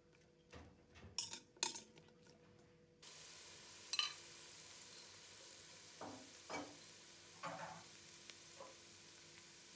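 Sliced onions sizzling in hot fat in a stainless steel pot, with a spoon stirring and clinking against the pot several times. The sizzle sets in abruptly about three seconds in, after a few sharp clicks.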